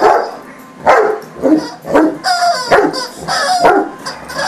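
Large dogs, Leonbergers among them, barking at each other in play: a quick run of loud barks, about two a second.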